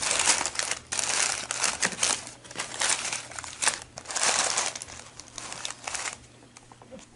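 Crinkly packaging rustling in repeated bursts as it is handled and rummaged through, stopping about six seconds in.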